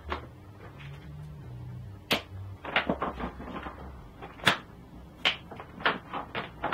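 Irregular clicks and knocks of cables and a hand tool being handled in a metal rack-mount enclosure on a workbench, with two sharper knocks along the way.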